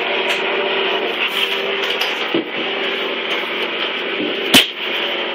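Steady hiss with a low hum in a small tiled room, and near the end a single sharp click as a chrome door knob is gripped and turned.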